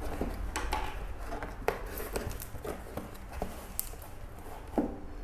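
Cardboard shipping box being opened by hand: its flaps pulled back and rustling, with scattered scrapes and a few sharp clicks and taps of cardboard.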